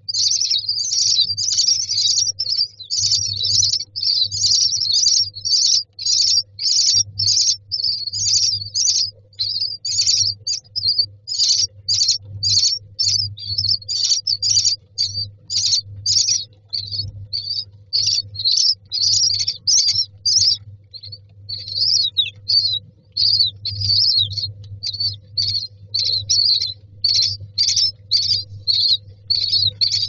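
Common myna nestlings begging for food: a continuous run of short, high-pitched calls, about two a second, over a faint low hum.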